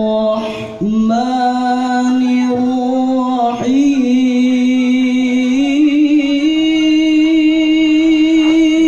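Male Qur'an reciter (qari) chanting in a melodic, drawn-out style, holding long notes with ornamented turns. He breaks twice for breath early on, then steps the pitch up in stages in the second half.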